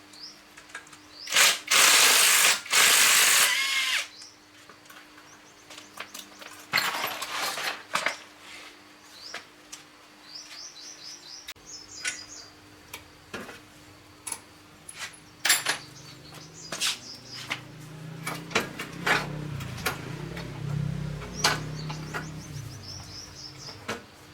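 Workshop tool work on a motorbike: a loud hissing burst of about two and a half seconds near the start and a shorter one a few seconds later, then scattered sharp clicks and knocks of tools on metal parts. Birds chirp in quick series in the background.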